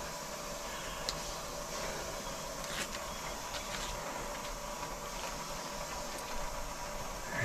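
Steady hiss of water running while a newly installed water heater tank fills, with a few faint clicks of a paper label being peeled and handled.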